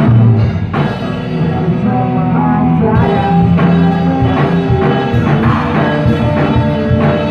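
Live rock band playing loudly: a Pearl drum kit keeping a steady beat under amplified electric guitars, with sustained chords and regular drum strikes.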